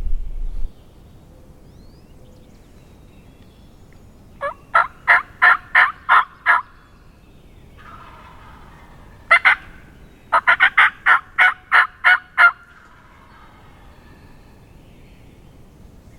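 Turkey yelps in three runs: about eight evenly spaced notes, a pause, two notes, then about ten more, each run at roughly four notes a second. A brief low rumble comes at the very start.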